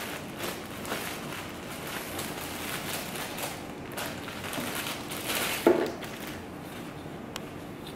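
Clear plastic poly bag crinkling and rustling as it is torn open by hand and a fabric bag is pulled out of it, with a louder burst of rustling about five and a half seconds in.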